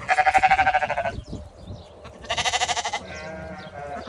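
Two quavering sheep bleats, likely from the farm's Dorper sheep. The first starts right away and lasts about a second; the second is higher and brighter and comes a little over two seconds in.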